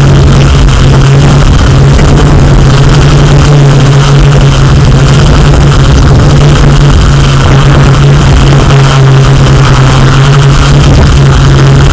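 Camera drone's motors and propellers running steadily in the air, a loud unbroken hum with a rushing hiss over it.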